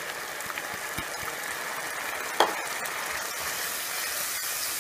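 Onion, tomato and yogurt masala sizzling steadily in a pan on the stove as a wooden spatula stirs through it, with one sharp knock about halfway through.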